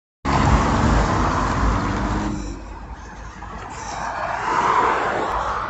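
Road traffic: a vehicle's engine and tyre noise is loud at first and drops off about two seconds in. Then another vehicle's noise swells and fades as it passes, loudest a little before the end.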